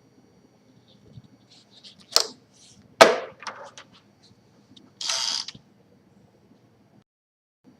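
1951 Smith Corona Silent manual typewriter mechanism: a few sparse clicks and clacks, the loudest a sharp clack about three seconds in, followed about two seconds later by a brief half-second rasp.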